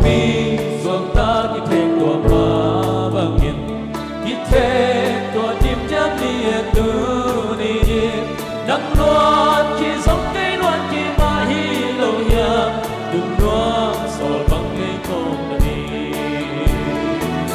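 A group of men singing together into microphones, backed by a live band whose drum kit keeps a steady beat under bass and other instruments.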